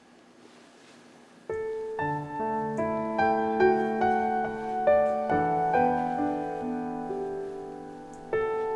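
Soft, slow piano music that begins about a second and a half in, with held chords under a gentle melody.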